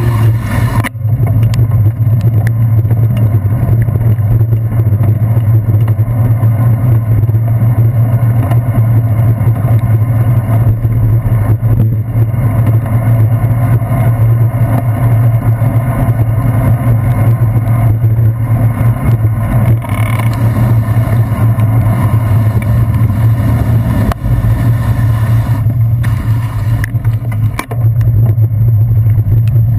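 Loud, steady road rumble of a bicycle ride on wet pavement, heard through a handlebar-mounted GoPro in its housing, with a low steady drone underneath.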